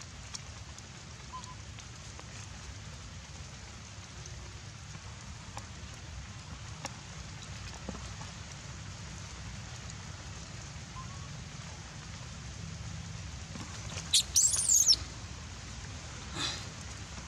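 Steady rain, with a few faint clicks of drops. About fourteen seconds in, a short burst of loud, shrill animal calls rises over it, and a fainter call follows near the end.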